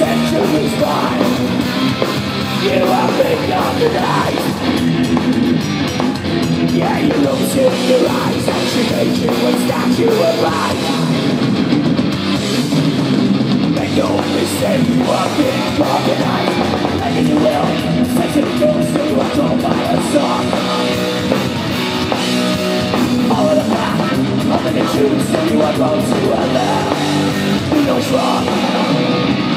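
Heavy metal-punk band playing live and loud: distorted electric guitar, bass guitar and drum kit going without a break.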